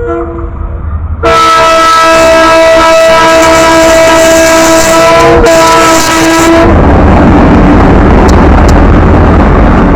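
Diesel locomotive air horn blown in a long multi-tone chord, starting about a second in and loud enough to overload the recording. After about five and a half seconds the tones stop and give way to a loud noisy rumble.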